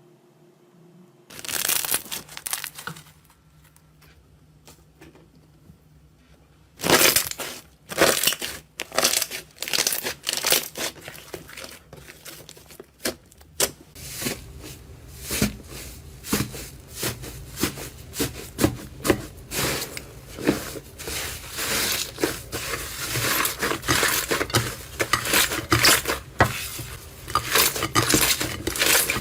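Crunchy material being crushed by hand: dense, rapid crackling and snapping. A short burst comes first, then after a pause the crunching resumes about seven seconds in and keeps on, growing busier toward the end.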